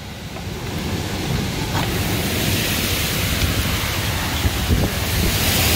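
Severe wind storm: strong wind blowing with heavy rain, the gusts buffeting the microphone in a heavy, fluttering rumble.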